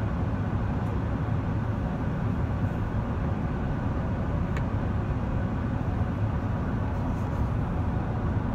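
Steady low rumble and rush inside the cabin of an Airbus A380 in flight, the air rushing past the fuselage and its Engine Alliance GP7200 engines heard through the cabin walls.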